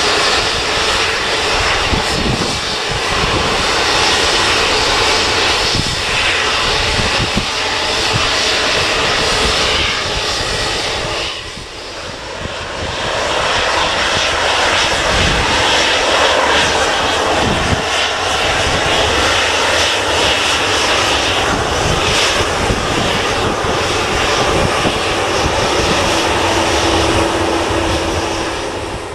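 Airliner jet engines running loud and steady with a dense rushing noise, dipping briefly about twelve seconds in before building back up.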